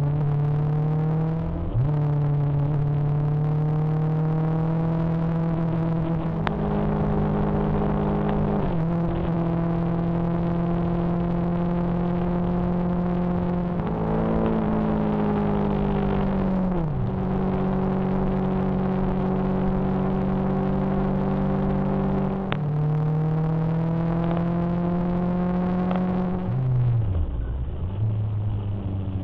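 Motorcycle engine running under way, holding a steady pitch at cruising speed, falling away as the bike slows and climbing again as it accelerates. The pitch jumps abruptly a few times where separate recordings are joined.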